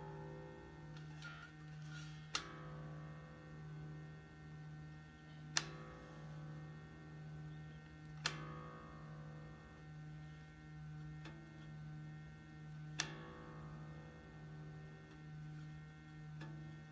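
Fretless electric bass strings plucked about four times, a few seconds apart, each note ringing out while the string is tuned and its intonation checked. A steady low hum pulsing about once a second runs underneath.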